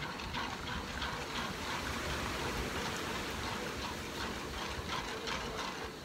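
A metal spatula stirring and scraping a thick, wet mixture in an aluminium pan, giving a steady stream of small, irregular wet clicks and scrapes.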